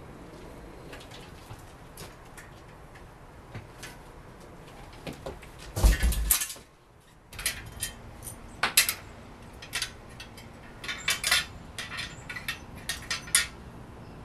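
Metal clinks, taps and rattles of hand tools on the metal parts of a Schwinn Meridian tricycle's rear axle assembly, with a louder thump about six seconds in and a quick run of clinks near the end.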